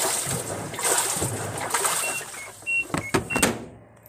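Water churning and sloshing in the drum of an LG top-loading washing machine as the pulsator agitates the wash, surging every second or so. This is the sign that the newly replaced pulsator gear is driving the pulsator again. A few sharp clicks come about three seconds in, and the sound fades near the end.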